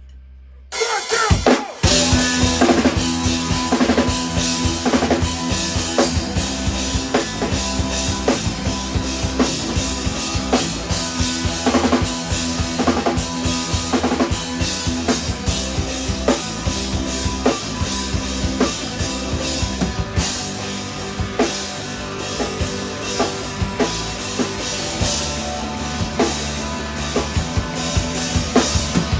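Three-piece instrumental rock band playing live. After a brief hush, the full band comes in about two seconds in, with a loud drum kit driving the beat.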